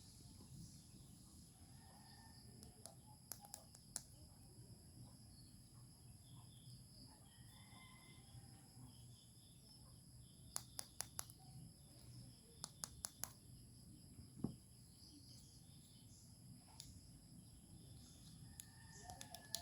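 Near silence, broken by a few faint, short clicks and taps in small clusters, like small objects being handled.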